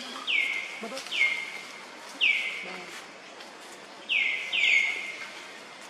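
A bird calling five times, each call a quick note falling in pitch; the last two come close together about four seconds in.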